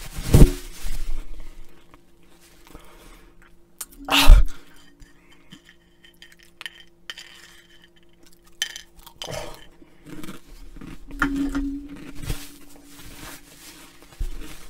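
Light clinks of a bowl and small rustles as the last of a bowl of Flamin' Hot Cheetos is handled. Two loud, short bursts close to the microphone stand out, one near the start and one about four seconds in.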